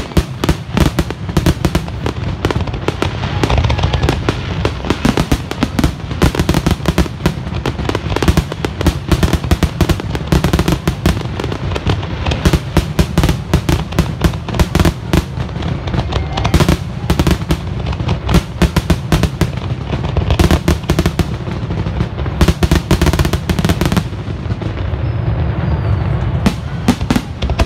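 Fireworks display: aerial shells bursting in rapid, overlapping bangs almost without pause, easing off briefly near the end.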